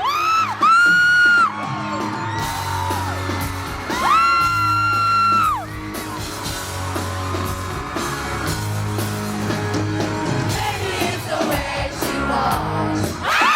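Live pop band playing and singing through a concert sound system, heard from the crowd. Fans close by scream long, high-pitched screams near the start and again around four seconds in.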